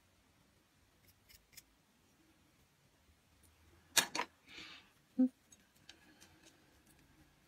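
Sculpting tools handled at the workbench. A few faint clicks of a wooden tool working the clay come first. About four seconds in there are two sharp clacks close together, then a brief rustle, and a second later a single dull knock.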